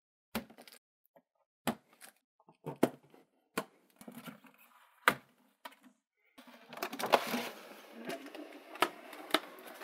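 Handling of a cardboard figure box: a series of separate sharp clicks and taps as the tape is slit with a plastic safety cutter and the box is opened. From about six seconds in, a continuous scraping rustle with more clicks as the clear plastic blister tray slides out of the box.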